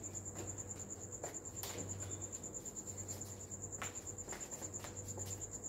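A cricket trilling steadily: a high, fast-pulsing trill that never stops, over a faint low hum, with a few light taps and clicks.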